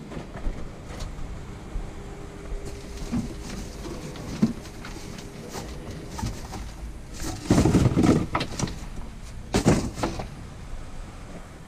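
Trash being handled inside a dumpster: cardboard boxes and plastic bags rustling and shifting, with scattered clicks and knocks. There are two louder bursts of rustling in the second half.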